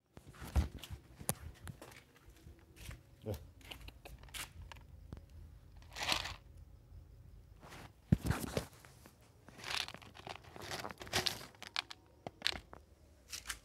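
Irregular close handling noises: crunches, scrapes, clicks and rustling, loudest about half a second in and again about eight seconds in.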